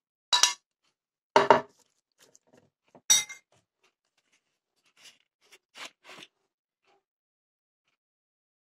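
A metal spoon clinking and scraping against a ceramic plate and a glass bowl: several short, sharp clinks and scrapes, the loudest ones in the first three and a half seconds.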